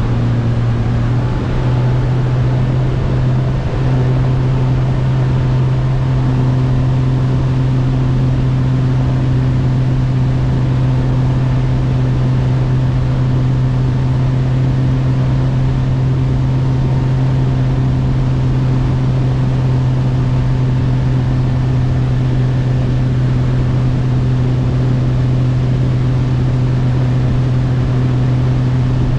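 Bass boat's outboard motor running at speed with a steady low drone whose pitch steps up slightly in the first few seconds, over a constant rush of wind and water from the hull cutting across the lake.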